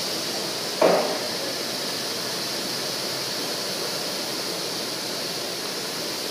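High-pressure water from a PDQ LaserWash 360 touchless car wash's spray arm hitting a car, a steady hiss. A single loud knock about a second in.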